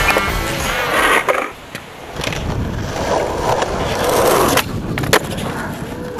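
Skateboard wheels rolling on rough concrete, the rolling noise swelling as the board approaches, with a few sharp clacks of the board on the ground, one about a second in and two close together near the end.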